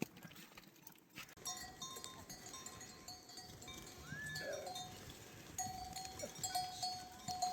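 Bells on a flock of sheep clinking and ringing over and over as the animals move, with one short bleat about four seconds in.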